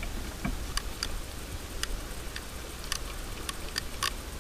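Spinning reel being cranked while reeling in a hooked fish: irregular sharp clicks, about two a second, over a steady low rumble.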